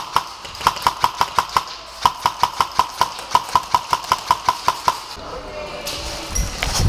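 VFC Block II airsoft rifle with a muzzle sound amplifier firing four rapid strings of shots, about eight a second, each shot with a short ringing tone; a last single shot comes about five seconds in.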